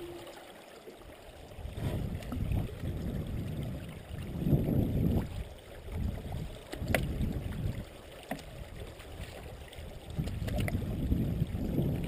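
Canoe being paddled through a narrow marsh channel: uneven paddle strokes swishing and gurgling in the water, with dry marsh grass rubbing along the hull. A few short sharp clicks fall in the second half.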